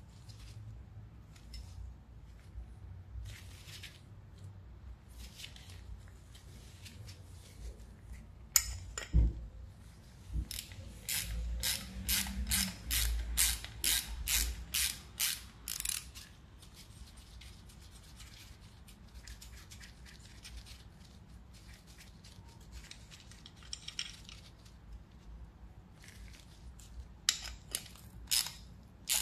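Socket ratchet wrench clicking in quick, even runs, typical of tightening the bolts of a split sprocket onto a mini bike wheel hub. Scattered metal clinks and knocks from handling parts and tools.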